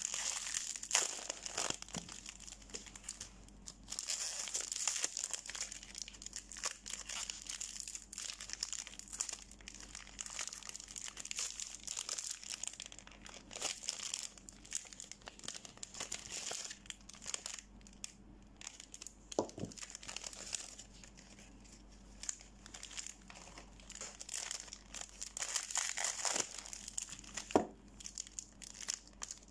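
Thin plastic wrapper of a soap multipack crinkling and tearing under the fingers as the bars are unpacked, with many small crackles throughout. It goes quieter for a few seconds about two-thirds of the way through.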